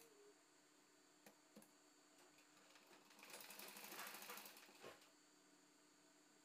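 Sewing machine running a short burst of stitching, about two seconds long, near the middle, stopping with a click. A few light clicks come before it.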